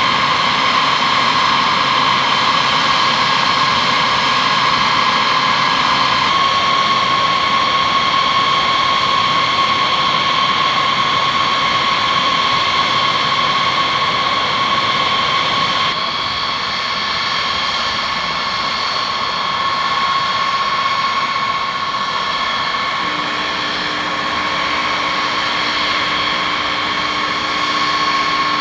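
Jet engines of a B-52H Stratofortress, eight Pratt & Whitney TF33 turbofans, running on the ground: a steady high whine over a rushing hiss, shifting abruptly in pitch and level a few times.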